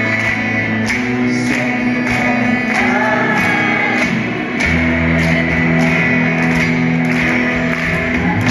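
Live band music led by guitar with singing over a steady beat of about two strokes a second, recorded on a phone in a concert hall.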